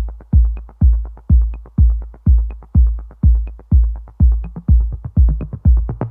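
Background electronic dance music: a steady kick-drum beat, about two beats a second, with light ticks between the beats.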